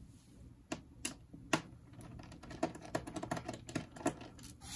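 Small clicks and taps from a precision screwdriver and tiny screws being worked out of a laptop's plastic bottom panel. A few separate clicks come first, then a quick, irregular flurry of clicks.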